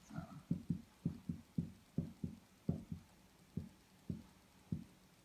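Dry-erase marker writing on a whiteboard: a quick, irregular run of short, dull taps as the strokes land on the board, about three a second, spacing out toward the end.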